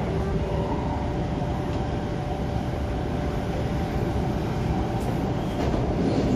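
MTR Tung Chung Line K-Train heard from inside the carriage while running: a steady rumble of wheels and running gear with a faint, unchanging whine. It grows slightly louder near the end.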